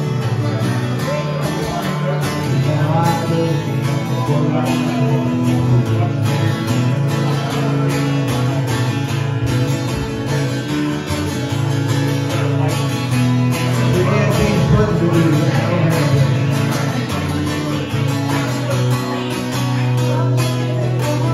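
Acoustic guitar strummed steadily, playing chords in a live song.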